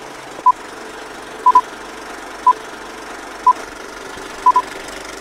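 Short electronic beeps at a steady one-second pace, twice as a quick double beep, over a steady hiss.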